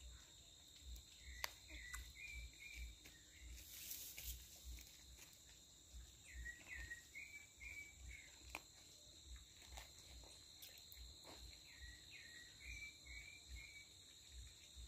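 Faint rural ambience: a bird repeats a short phrase of a few quick notes three times, about five seconds apart, over a steady high insect drone.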